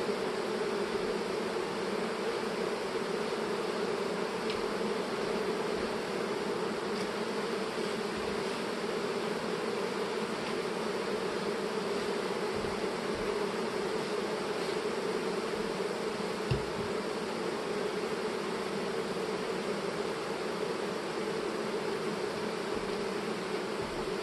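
Steady, unbroken buzzing of a clustered mass of honey bees confined in plastic package cages, with one soft low bump about sixteen seconds in.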